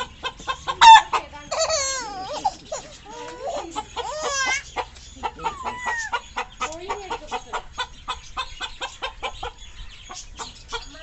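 Chicken clucking in a fast run of short clucks, broken by several higher squawking calls; the loudest call comes about a second in.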